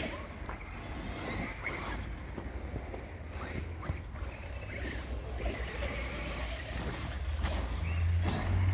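Electric RC monster truck running on a gravel track at a distance, its motor and tyres faint, growing louder near the end as it comes closer.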